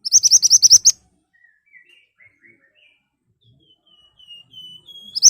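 Mantenan songbird singing. It opens with a loud, rapid burst of about eight sharp, rising high notes lasting under a second, then gives softer scattered twittering notes and a wavering high phrase. Just before the end it starts a second loud, rapid burst.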